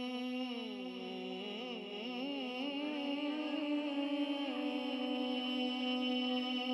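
Naat reciter's voice singing a wordless, wavering melodic opening over a steady held drone, before the words of the naat begin.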